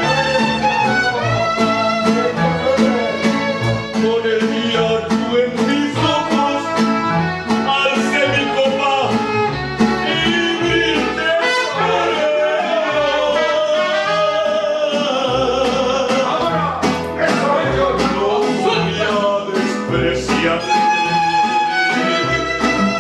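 Live mariachi band playing: violins carry the melody over strummed vihuela and guitars, with a low plucked bass line and a trumpet among the instruments.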